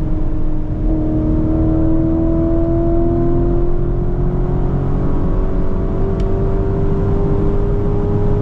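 Lamborghini Urus SE's 4.0-litre V8 hybrid powertrain under full acceleration at high speed, its engine note climbing slowly and steadily in a tall gear.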